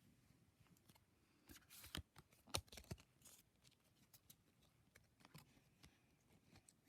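Foil wrapper of a Pokémon booster pack being opened and handled: a quick run of sharp crinkles and clicks about two seconds in, then a few fainter ones later.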